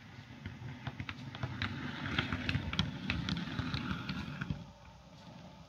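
Model Warship diesel locomotive running past on model railway track: the motor and wheels rumble, with rapid clicks as the wheels cross rail joints and pointwork. It swells in the middle and fades away about five seconds in.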